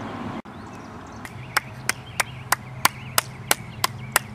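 Bare hands slapping palm to palm in a run of repeated high-fives, about three sharp slaps a second, beginning about a second in.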